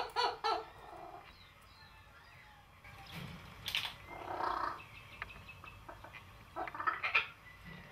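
Animal calls: a fast series of repeated pitched calls, about four a second, stops about half a second in. Scattered single calls and a sharp snap follow.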